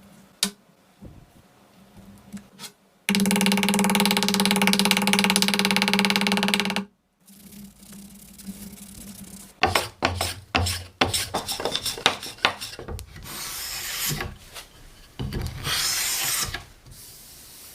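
Wood being worked with tools. A steady pitched machine sound starts and stops abruptly and runs for about four seconds. After it come many short scraping and knocking strokes, then two longer rasping strokes near the end.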